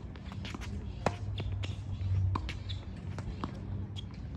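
Tennis rally on a hard court: the ball is struck by rackets and bounces, giving a sharp pop about once a second, the loudest about a second in, over a low steady hum.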